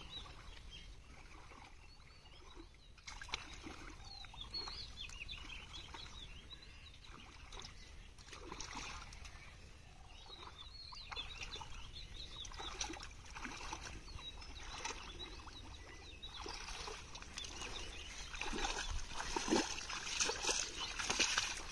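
Water sloshing and splashing as a person wades through a shallow pond, louder and busier near the end as the legs push through floating water hyacinth. Birds chirp in the background.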